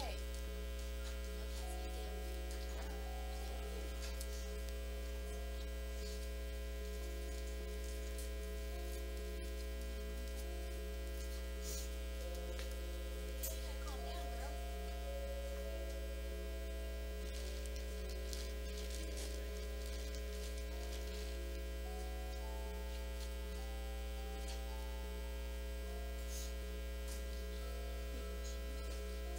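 Steady low electrical mains hum with no change in level, with faint held tones above it that shift now and then.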